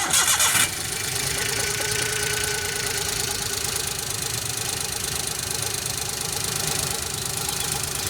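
Engine sound of the mini tractor starting with a sudden loud burst, then running steadily with a dense rattle.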